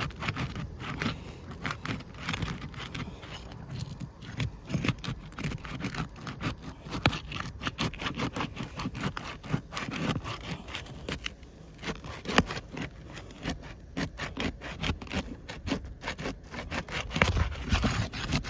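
A pry tool scraping and working under asphalt shingles in many short, irregular strokes, breaking the adhesive seal between the shingle courses.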